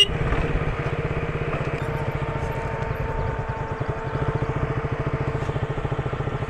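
Single-cylinder engine of a KTM Duke motorcycle running at low speed, with an even, rapid pulsing exhaust beat. A short horn beep sounds at the very start.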